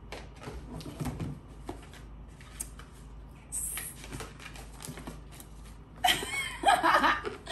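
Cardboard and paper rustling with small clicks and taps as an orange Hermès box and its wrapping are handled. About six seconds in, a woman's voice comes in, louder than the rustling.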